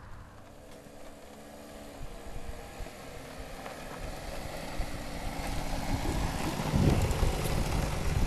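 Small quad ATV engine running as the quad is ridden over dirt. It grows louder over the last few seconds as it comes up close.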